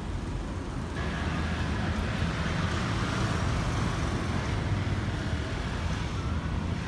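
Road traffic on a city street: a steady low rumble of passing cars, with tyre and engine noise swelling from about a second in.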